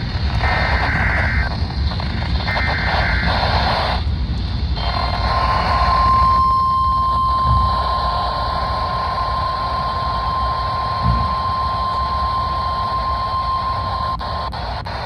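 Emergency Alert System broadcast over weather radio: the last two screeching SAME header data bursts, each about a second long, then after a short gap a steady single-pitched attention tone near 1 kHz held for about nine seconds, all over a constant noisy rumble of radio reception.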